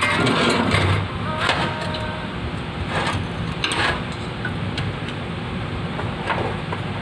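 Metal stove parts being handled: a few scattered scrapes and knocks over a steady low hum.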